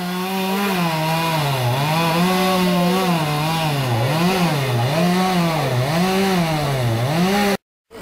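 Two-stroke chainsaw running hard, its pitch sweeping down and back up in a steady repeating cycle about once every three-quarters of a second as it works through the logs. It breaks off abruptly just before the end.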